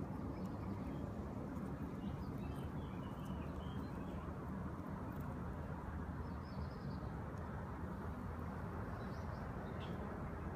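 Steady low outdoor background rumble with a few faint, short bird chirps scattered through it.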